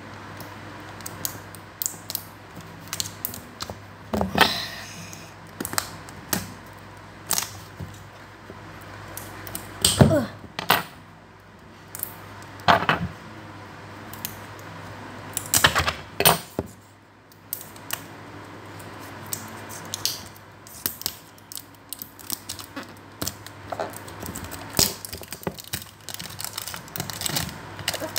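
Clear plastic shrink-wrap being picked at with fingernails and peeled off a cardboard card box: irregular crinkles, scratches and small taps, with a steady low hum underneath.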